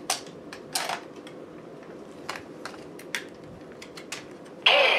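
Plastic toy being handled in its plastic wrapping: a string of short, sharp clicks and crinkles, with a louder, longer crinkle near the end.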